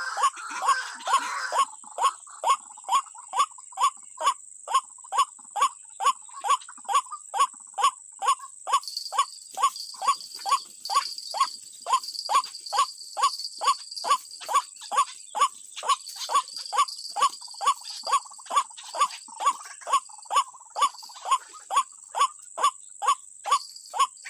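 White-breasted waterhen (ruak-ruak) calls repeated monotonously, short notes about twice a second in a very even rhythm. A steady high whine runs behind, and a second high buzz joins about nine seconds in.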